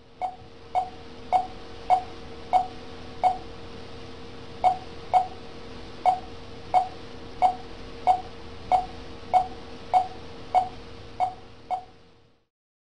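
Hospital heart monitor beeping, a short electronic beep about one and a half times a second with a couple of beats skipped, over a steady faint hum. The beeping stops a little before the end.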